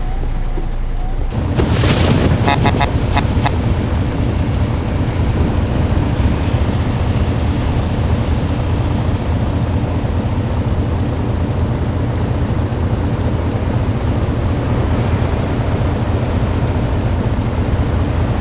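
International truck's diesel engine running with a loud, deep, steady rumble. It gets louder about a second in, and a quick series of sharp clicks follows shortly after.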